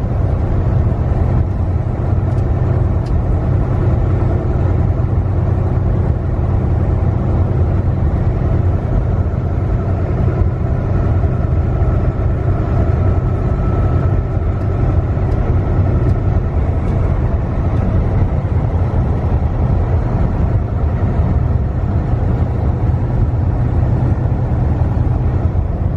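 Semi-truck on the move: steady engine and road noise, strongest in the low range, unchanging throughout.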